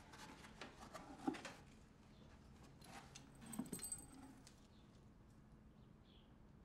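Mostly near silence with faint room tone, broken by two short bursts of soft rustling and small clicks, about a second in and again around three and a half seconds: rummaging in a cardboard box and handling a small object taken from it.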